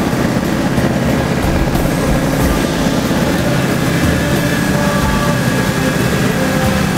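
A de Havilland Chipmunk's piston engine and propeller running steadily in flight, heard from inside the cockpit.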